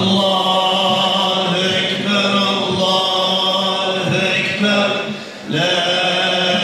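Voices chanting in long drawn-out notes, with a short break about five seconds in before the chant resumes.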